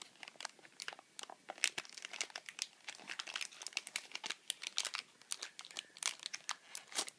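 Clear cellophane wrapping crinkling and crackling in quick, irregular bursts as it is peeled off a bar of handmade soap.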